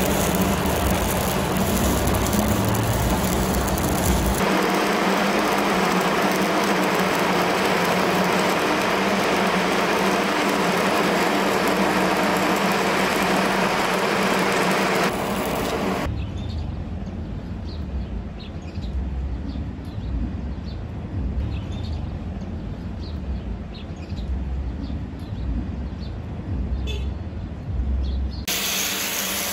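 Stick (SMAW) welding arc crackling and hissing steadily as a bead is run along a horizontal joint between two upright steel plates. About sixteen seconds in the arc stops suddenly, leaving a low rumble with a few faint ticks.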